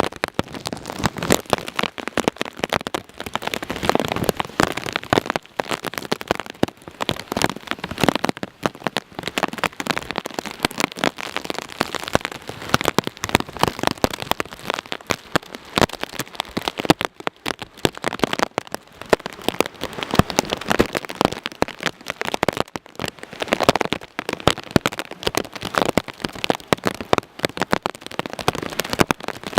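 Heavy tropical-storm rain, with drops pattering densely and irregularly on a nearby surface as a steady spatter of sharp clicks over a hiss.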